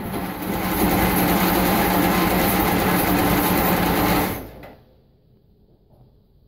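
Electric starter cranking the Rolls-Royce B81 straight-eight engine with a steady rhythmic whirr for about four seconds without it catching, then stopping.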